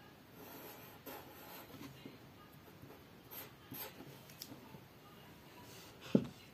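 Pink Giotto felt-tip marker scratching on paper in short, faint strokes. A louder low thump comes near the end.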